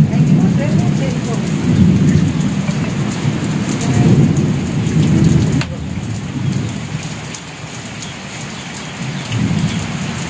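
Heavy rain pouring, with many fine drip ticks and a deep low rumble that is loudest in the first half and drops away about halfway through.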